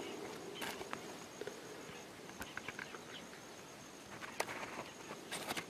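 Faint outdoor ambience: a steady high-pitched insect buzz, with scattered light crackles and rustles of brush or leaf litter.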